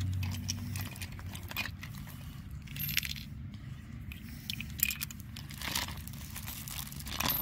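Small plastic clicks and rattles of pressure-washer spray nozzle tips being handled, scattered irregularly over a low steady hum.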